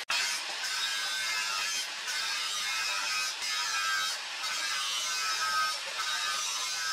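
Angle grinder with an abrasive disc grinding the steel edge of a forged meat cleaver blade: a steady, high-pitched grinding hiss that dips briefly several times.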